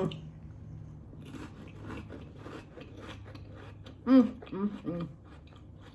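Close-up chewing of crisp crackers, an irregular run of crunchy crackles. About four seconds in come three short voiced hums from the eater, louder than the chewing.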